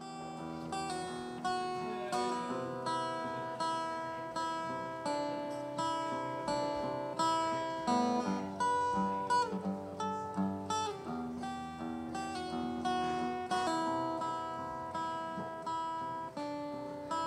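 Acoustic-electric guitar played solo, picked chords struck in a steady rhythm of about one to two strokes a second, each ringing out until the next.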